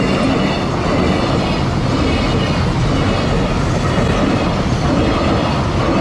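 Freight train's loaded container flatcars rolling past at close range: steady, loud wheel-on-rail noise with no let-up.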